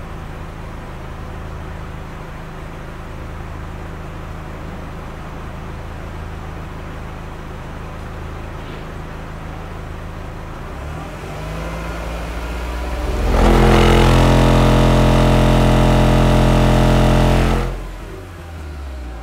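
Car audio system of eight JBL GT4 10-inch subwoofers on about 3,000 watts, playing a low test tone near 43 Hz for an SPL measurement. A steady low hum builds from about eleven seconds in into a very loud low note with many overtones, lasting about four seconds and then cutting off sharply. This burst measures about 149 dB at 43 Hz.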